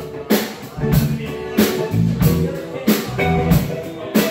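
Live band playing an instrumental passage on hollow-body electric guitar, electric bass and drum kit. The drums keep a steady beat of strikes, about three every two seconds, over sustained bass notes.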